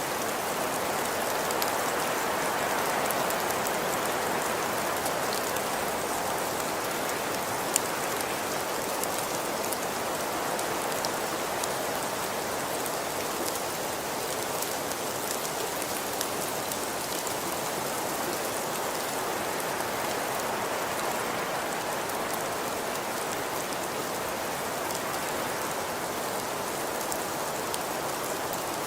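Steady rain falling, an even hiss dotted with the small ticks of individual drops striking a surface.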